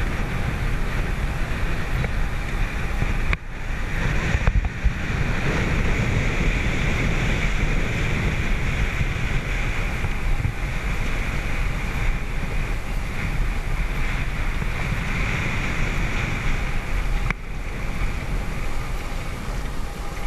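Wind buffeting the microphone and water rushing past the hull of a moving catamaran, a steady noise with two brief dips.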